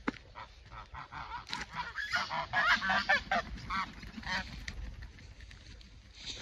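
White domestic geese honking: a run of many short honks, busiest about two to three and a half seconds in, then tailing off.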